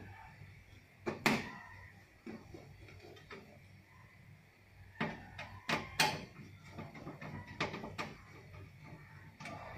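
Scattered clicks and light knocks of a screwdriver and hands working at the screws on a TV's sheet-metal back cover, over a steady low hum.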